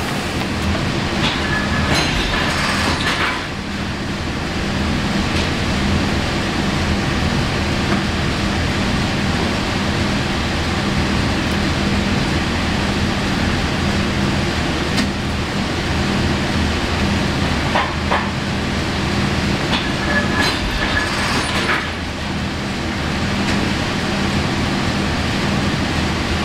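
Vinyl heat sealer with turntable running on a workshop floor: a steady mechanical drone with a constant low hum. It is broken twice by short bursts of hissing, about two seconds in and again around twenty seconds in.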